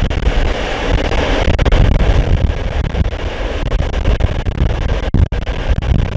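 Running rumble of a train hauled by an SU45 diesel locomotive, heard from aboard, with heavy wind buffeting the microphone. The sound cuts out for an instant about five seconds in.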